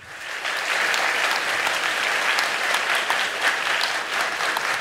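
A large audience applauding: dense, even clapping from many hands that swells up within the first half second and then holds steady.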